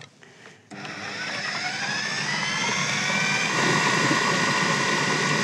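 KitchenAid food processor motor starting just under a second in, spinning up with a rising whine, then running steadily as it blitzes whole boiled oranges, eggs and oil into a wet cake batter.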